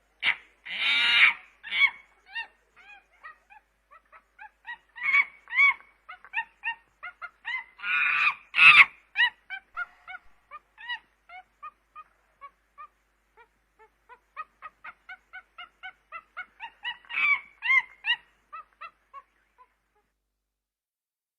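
Chimpanzee calling: a rapid run of short, pitched calls, about three or four a second, broken by three louder, harsher bursts. The calls stop shortly before the end.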